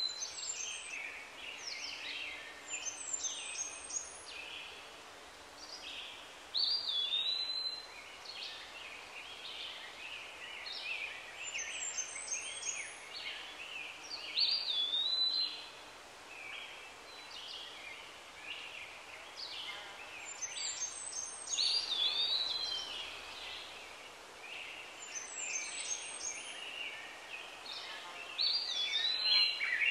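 Birds singing: a bright phrase of chirps and whistles that opens with a rising whistle and comes around about every seven seconds, over a faint steady background hiss.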